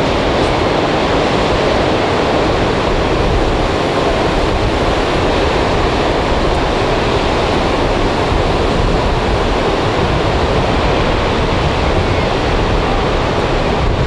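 Ocean surf, a steady and even rush of breaking waves.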